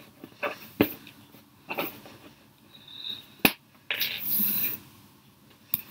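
A cardboard gift box being opened and handled: a few sharp clicks and taps, with a brief rustle of packaging past the middle.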